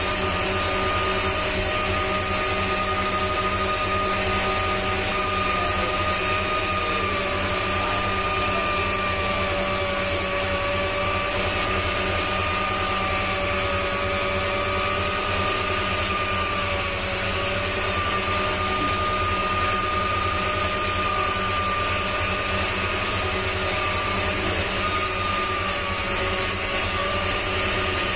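Jeweller's micromotor handpiece running steadily with a high whine that wavers slightly in pitch, its bur cutting a design into a gold pendant.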